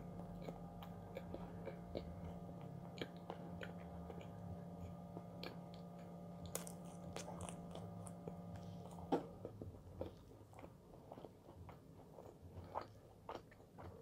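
Close chewing of a dense, nutty fruit-and-seed bread with chestnuts and pumpkin and sesame seeds: soft mouth sounds broken by many small crunches and clicks, a few of them louder.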